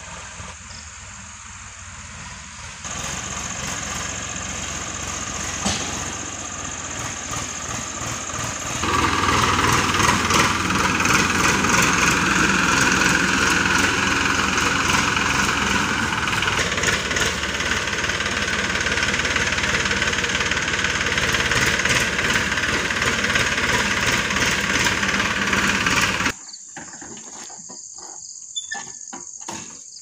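Farm tractor engine running under load as it pulls a trolley overloaded with paddy sheaves. It grows louder about three and again about nine seconds in as the tractor comes closer, then drops off abruptly near the end.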